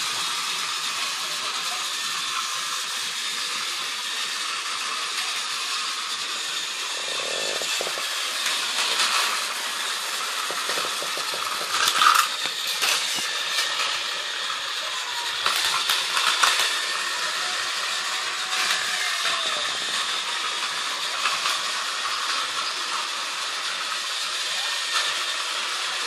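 Small battery-powered motors of TrackMaster toy trains whirring steadily as they run on plastic track, with a few clacks and rattles about halfway through.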